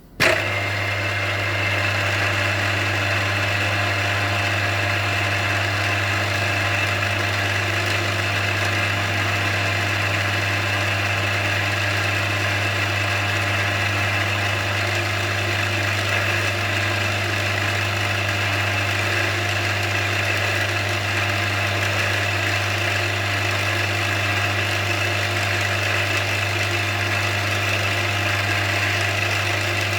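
Milling machine starting up and running steadily with a low hum and a high whine, drilling out a broken optic-mount screw in a pistol slide.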